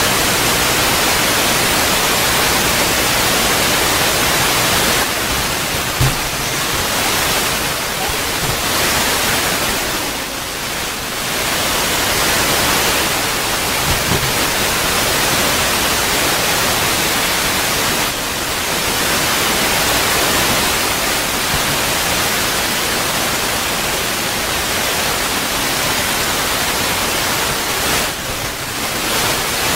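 Loud, steady static-like hiss with no clear pitched sound in it. It dips briefly twice, and there are a couple of faint clicks.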